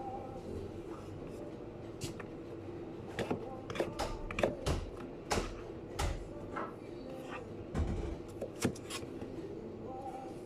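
Scattered knocks and clatters of kitchen handling work, bunched in the middle of the stretch, over a steady machine hum.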